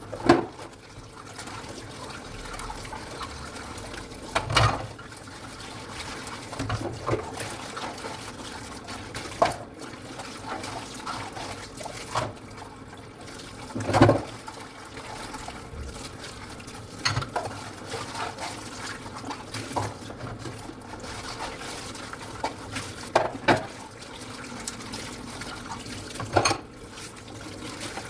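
Tap water running steadily into a sink while dishes are washed by hand, with clinks and knocks of dishes against each other or the sink every few seconds, the loudest about halfway through.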